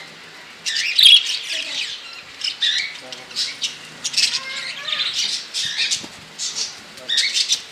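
A flock of caged pet parrots, budgerigars and cockatiels, chirping and squawking, with many short calls overlapping in quick busy bursts.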